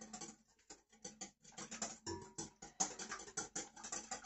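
A utensil beating an egg and kefir mixture in a glass bowl, with rapid, irregular clicks and scrapes against the glass.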